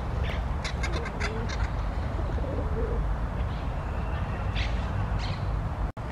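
Birds calling faintly: a few short high chirps and a low cooing, over a steady low rumble.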